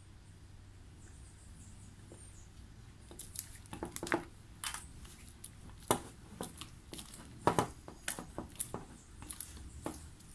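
Small dental waxing instruments clicking and scraping against a stone model and the bench. The irregular sharp clicks and short scrapes start about three seconds in, two or three a second at times, and go on to the end.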